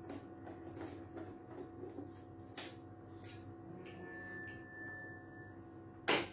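Light metal clicks and taps from hand tools and small screws while an iMac is being taken apart, with two short ringing metallic pings about four seconds in and a sharp knock near the end.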